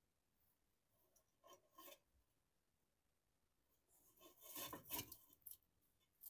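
Faint scratching and scraping: a bearded dragon's claws on its hide and platform as it crawls out toward a held cockroach. A few soft scrapes come near two seconds in, and a longer, louder scrape from about four to five and a half seconds in.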